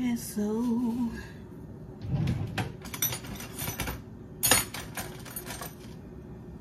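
A woman hums a short wordless phrase. Then come a run of clicks and rustles from small items being handled, with one sharp, louder click a little after four seconds.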